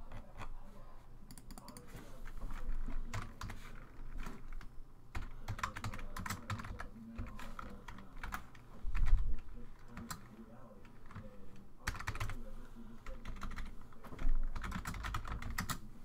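Computer keyboard typing: key clicks in short bursts with pauses between them, as a name is typed in.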